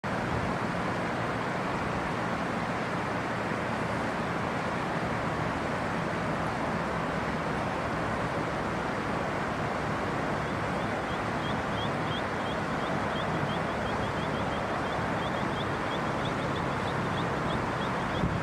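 Steady rushing of flowing river water. From about halfway through, a high chirp repeats about four times a second.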